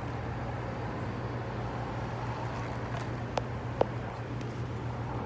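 Steady low hum over outdoor background noise, with two light clicks a little past three seconds in.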